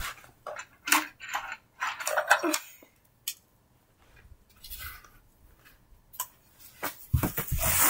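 Scattered light clicks, taps and rustling in two clusters: a run in the first two and a half seconds and another near the end, with a quieter stretch in between.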